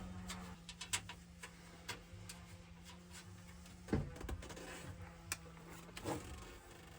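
Scattered light clicks and knocks of hand tools and metal hardware being handled, irregular and about one a second, with the strongest knock about four seconds in, over a faint steady hum.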